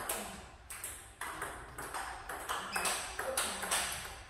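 Table tennis rally: a celluloid-type ball cracking quickly back and forth off the paddles, one a Nittaku Acoustic five-ply wooden blade with DHS Hurricane 3 NEO rubber, and bouncing on the table in a fast blocking exchange. The sharp clicks come two or three a second and echo briefly in the hall.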